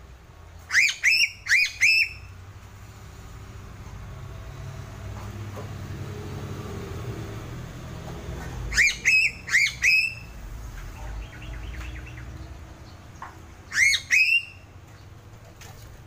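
Sulawesi crow (piping crow) calling: loud, short, high notes that slide upward, given in quick runs. About four come a second in, four more around nine seconds and two near the end, over a low background rumble.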